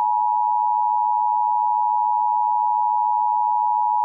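Emergency Alert System attention signal: two steady tones near 853 and 960 Hz sounded together as one continuous, unchanging two-tone beep.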